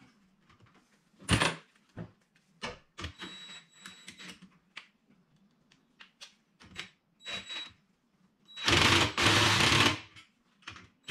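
Hose clamps being tightened around a roof crossbar with a cordless driver: scattered clicks and knocks as it is handled, short runs of a faint whir, then one loud run of the tool about 1.5 s long near the end.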